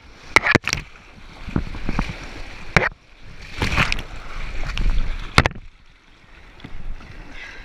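Whitewater rushing around a kayak, with splashing paddle strokes. About four sharp knocks of water and paddle against the boat stand out, the loudest at about the start and five and a half seconds in.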